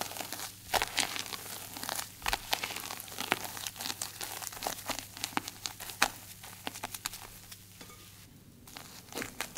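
Spatula folding a thick batter of grated zucchini, flour and whipped egg whites in a glass bowl: an irregular run of wet scraping strokes and small clicks, dying away about eight seconds in.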